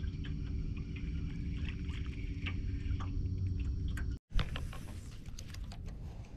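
Bow-mounted electric trolling motor humming steadily, with small ticks and splashes of water against the boat. About four seconds in the sound breaks off, followed by one sharp click and a steady hiss.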